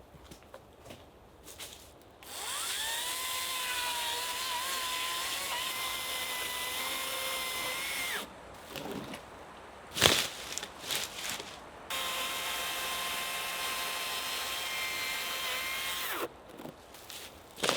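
Power drill running in two long steady bursts, the first about six seconds and spinning up at the start, the second about four seconds, with a single knock between them.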